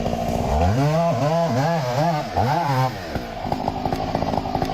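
Chainsaw cutting timber: the engine revs up about half a second in, and its pitch dips and recovers about five times as the chain works through the wood. Near three seconds in it drops back to a rattling idle.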